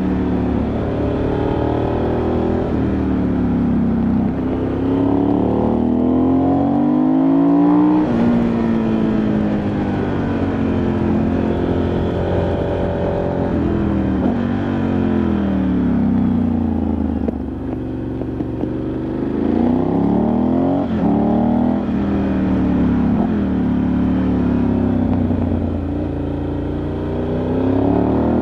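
Ducati Multistrada 1100S's air-cooled L-twin engine heard onboard, its note repeatedly rising under throttle and falling off, with a sudden drop about eight seconds in as it shifts or backs off. Wind noise on the microphone runs underneath.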